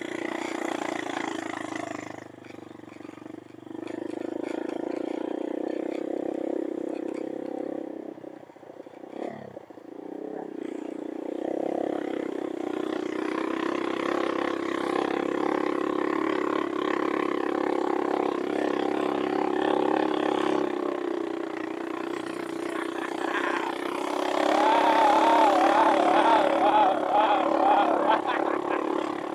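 Motorcycle engine running steadily while riding, heard from on the bike with road and wind noise. It drops away briefly about eight seconds in, then picks up and gets louder near the end.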